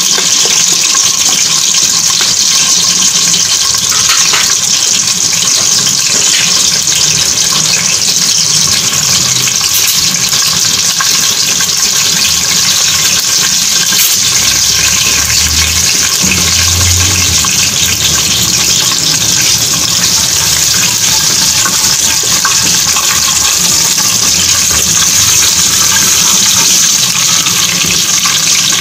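Cumin seeds and small cinnamon pieces sizzling in hot cooking oil in a steel pot, the whole spices being fried to open their flavour before the onions go in. A loud, steady hiss.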